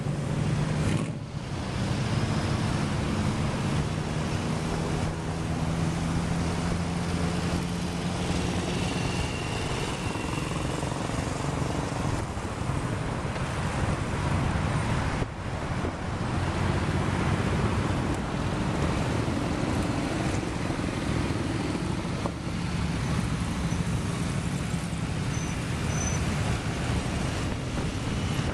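Many motorcycles riding past one after another in a long column, their engines blending into a continuous, steady engine sound with brief dips about a second in and about fifteen seconds in.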